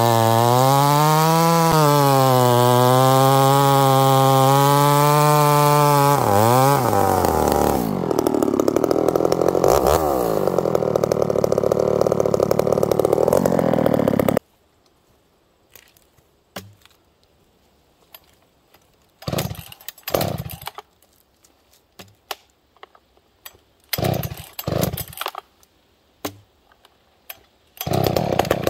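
A ported Husqvarna 266XP two-stroke chainsaw runs at high revs, its pitch wavering slightly as it cuts into wood. About six seconds in the revs drop, and it runs on more roughly until it stops abruptly around halfway. After that only scattered short knocks are heard, until the saw runs hard again near the end.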